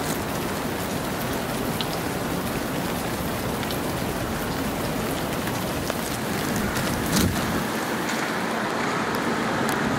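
Steady hiss of rain falling on wet streets, with a few short sharp ticks about two seconds in and again around seven seconds.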